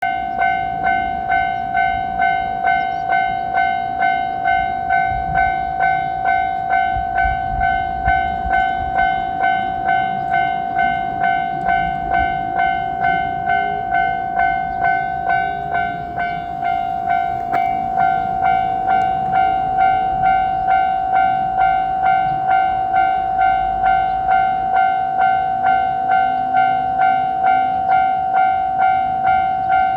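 Japanese railway level-crossing warning bell ringing, an electronic kan-kan chime repeating evenly about three times every two seconds, with a low rumble rising and fading beneath it at times.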